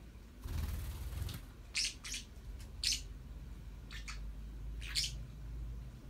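Green parakeets giving short, sharp chirps, about six in all, singly and in quick pairs. Just before them comes a rustle about a second long.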